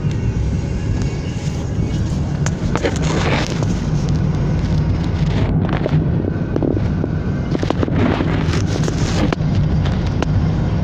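A car driving on a paved road, heard from inside the cabin: a steady low rumble of engine and tyres, with irregular crackles and knocks over it.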